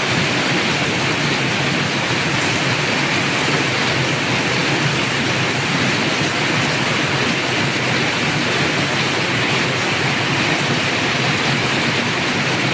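Heavy rain pouring down, a loud, steady hiss that does not let up.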